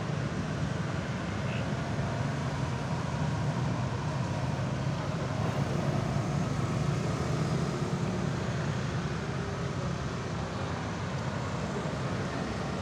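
Steady road traffic noise from motorcycles and cars going round a roundabout, a car passing near the end.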